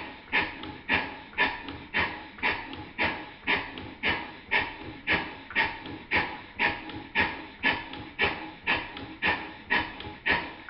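Stuart 5A model steam engine running in reverse gear, giving an even exhaust chuff about twice a second.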